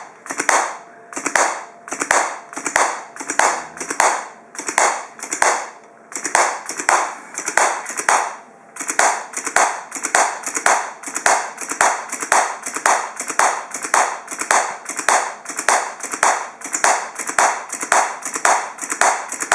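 Pneumatically driven clapping machine with two large soft artificial hands clapping repeatedly in an even rhythm. The claps come about one and a half a second, then speed up to about two a second about nine seconds in.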